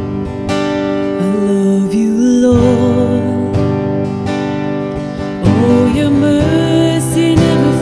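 Live worship music: a strummed acoustic guitar with a woman singing a slow worship song, her voice coming in about a second in and again past the halfway point.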